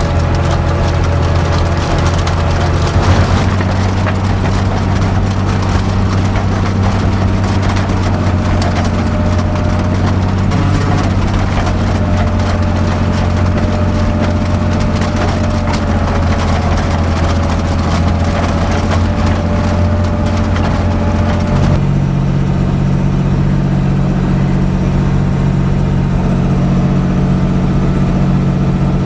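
Fendt Favorit 611 LSA Turbomatik's six-cylinder diesel engine running steadily under load while pulling a mounted four-furrow plough, with a faint steady whine over the engine. The engine note shifts about three seconds in and again about twenty-two seconds in.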